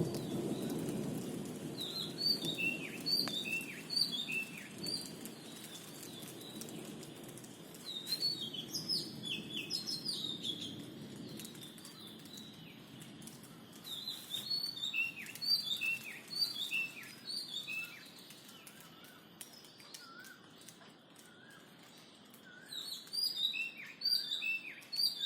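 A songbird singing bouts of quick, repeated chirps that fall in pitch, several seconds per bout with short gaps between. A low steady noise runs underneath through the first half and then fades.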